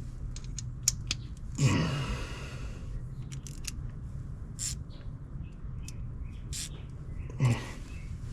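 Scattered light metallic clicks and clinks of hand tools working on the truck's starter and solenoid fittings, with two short louder sounds about two seconds in and near the end, over a steady low hum.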